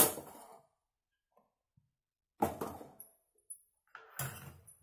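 Short clinks and knocks of metal kitchen utensils and cookware: one dying away at the very start, then two more, about two and a half and four seconds in, each with a brief ring.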